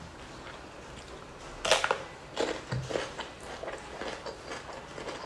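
A loud, crisp bite into a chunk of raw cucumber a little under two seconds in, followed by a few crunching chews that soften toward the end.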